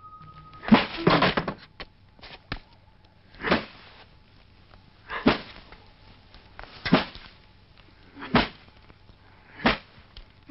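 Blows of a beating landing on a child, a sharp hit about every second and a half, seven in all, with a short cry from the boy around the first ones.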